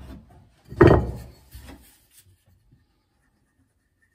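A single loud knock on the wooden framing of a plywood wall about a second in, with a short ringing tail, then only faint handling.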